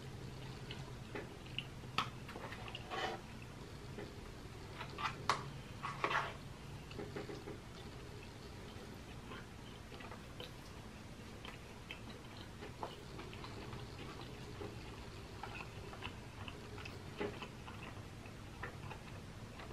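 Eating sounds: a metal spoon clicking and scraping against a plastic takeout bowl, with chewing between. A few louder clatters come in the first six seconds, then smaller scattered clicks.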